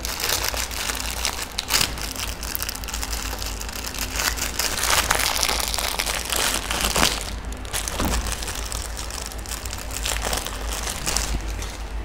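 Plastic food packaging crinkling and crackling as a takeaway meal container is handled and opened, with a few sharper clicks along the way.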